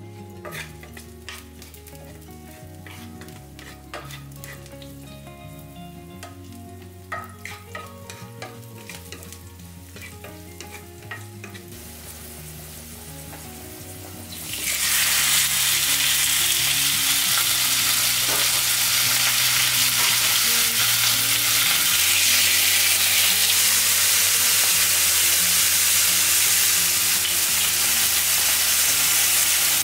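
Garlic cloves frying gently in olive oil in a cast-iron skillet, with scattered small crackles. About halfway through, a much louder steady sizzle takes over as baby octopus fries in the hot oil.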